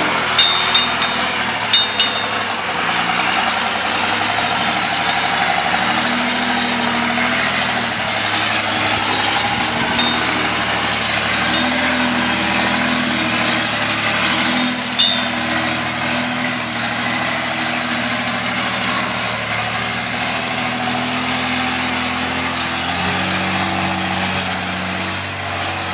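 Off-road 4x4 truck's engine running under load as it crawls over rocks, its pitch rising and falling with the throttle, with a few sharp clanks near the start and about fifteen seconds in. The sound fades slightly as the truck pulls away.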